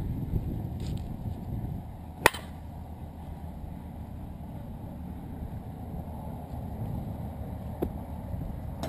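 A composite slowpitch softball bat, the Miken Freak Black MAXLOAD, striking a softball: one sharp, loud crack with a brief ring about two seconds in, then a much fainter knock near the end, over a steady low rumble.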